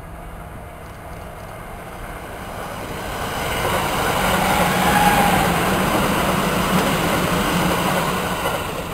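Kintetsu 23000-series Ise-Shima Liner electric limited express passing: wheel-on-rail rumble with a steady motor hum builds from about two seconds in, is loudest around the middle, and fades as the last cars go by.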